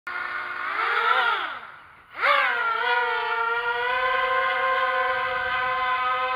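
Small racing quadcopter's brushless motors whine: they spin up and back down briefly and nearly stop about two seconds in, then spin up sharply and settle into a steady, high-pitched whine as the quad lifts off.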